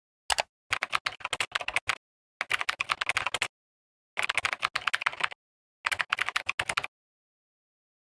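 Rapid typing on a keyboard, dense quick clicks in five bursts, the last ending about seven seconds in.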